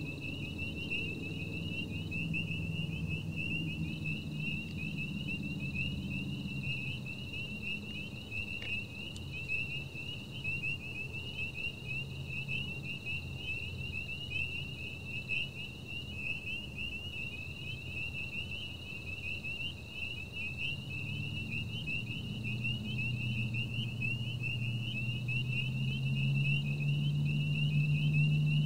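A dense night-time chorus of high-pitched, rapidly pulsing animal calls that never lets up, over a low hum that grows louder near the end.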